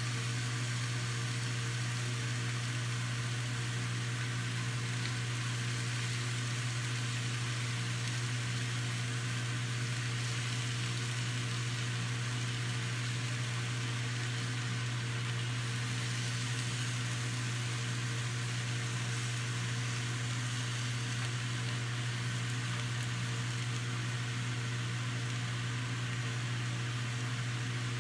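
Steak sizzling steadily in a frying pan over a gas burner, an even hiss, under a constant low hum.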